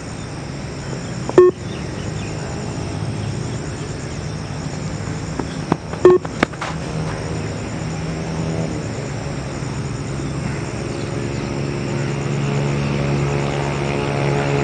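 Two short electronic beeps from the Yo-Yo intermittent recovery test recording, about a second and a half in and again about six seconds in, timing the runners' shuttle run, most likely its turn and its finish. Under them a motor's steady hum grows louder in the second half.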